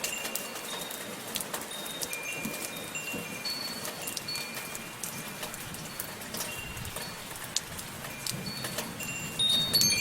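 Softly falling rain, a steady patter, with wind chimes ringing now and then in short, high, clear tones. The chimes come as a louder cluster near the end.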